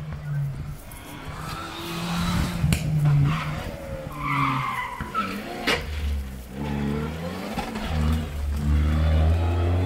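A rally car driven hard on a closed stage, its engine revving up and dropping back through gear changes while the tyres skid and squeal. A single sharp crack comes about halfway through.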